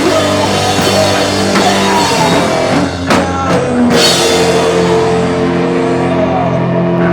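Live rock band playing loud, with drum kit and guitars. About three to four seconds in come cymbal crashes, then the cymbals die away and held chords ring on.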